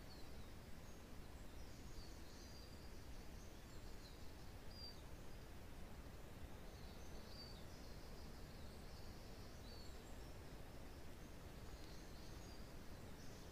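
Faint wind in pine woodland, a steady low rumble, with small forest birds giving short, high, scattered chirps throughout.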